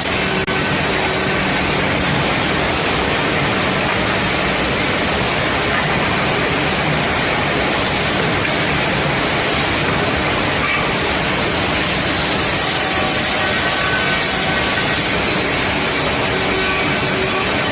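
Woodworking machinery of a servo finger-joint line running with a loud, steady rushing noise, with a few faint short tones above it.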